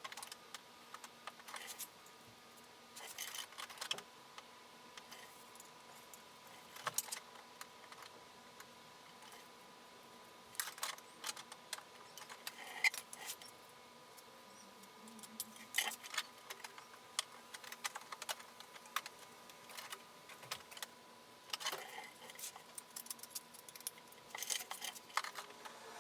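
Scattered light clicks and short metallic rattles at irregular intervals, over a faint steady high tone.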